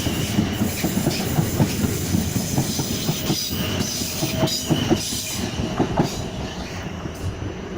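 Class 450 electric multiple unit passing at speed, its wheels clattering quickly and irregularly over the rail joints, fading as the train moves away.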